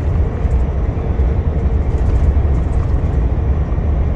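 Steady low drone inside a heavy truck's cab while cruising on the highway: engine and road noise, with no changes or separate events.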